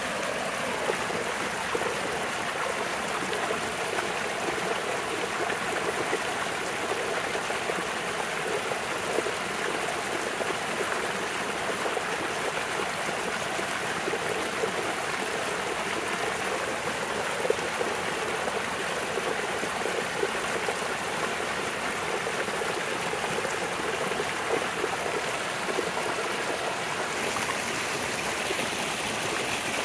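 Small rain-swollen mountain creek rushing and splashing steadily down a rocky bed in little cascades. The sound shifts slightly near the end as another stretch of cascades comes into hearing.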